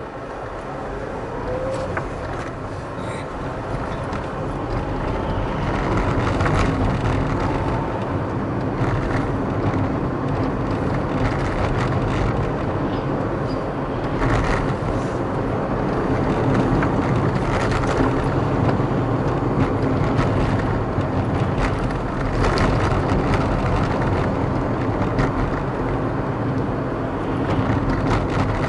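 A car driving on a city street, heard from inside the cabin: engine and tyre noise rise over the first several seconds as it pulls away and picks up speed, then run steadily, with a few short louder swells.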